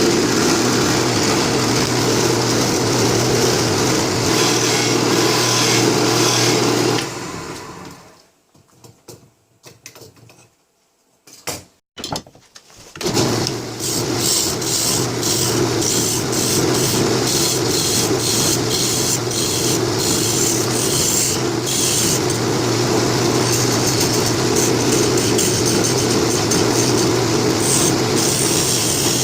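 Wood lathe running steadily while cherry is turned. The motor winds down about seven seconds in, a few light knocks follow, and the lathe runs steadily again from about thirteen seconds in.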